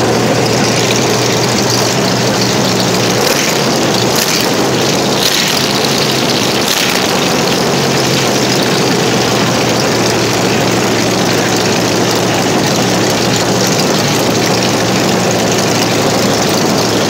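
Jacobs radial aircraft engine in a 1939 Plymouth pickup running steadily and loudly at a low, even speed.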